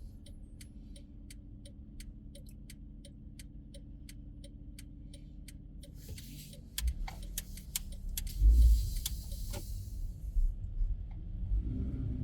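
A car's turn-signal indicator ticks steadily, about two ticks a second, over the low hum of the cabin. About halfway through the ticking stops, and louder road rumble and scattered knocks follow.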